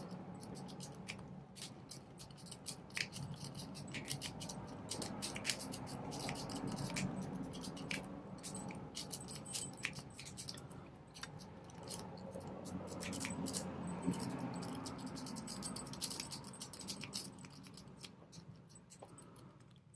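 Sparrows worm rake being worked in and out of the keyway of a four-pin Syneco 40mm steel laminated padlock: rapid, irregular metallic scratching and clicking of the pins. The lock does not open under the rake. The scratching thins out near the end.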